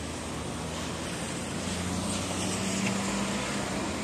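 Low hum of a motor vehicle engine running, swelling a little about halfway through, over a steady hiss of rain.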